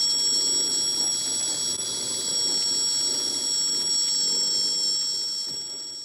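Piezo speaker driven by a programmable touch board, sounding a steady high-pitched electronic whistle with overtones. Its pitch is set by the resistance of the conductive dough held between two clips. The tone fades out near the end.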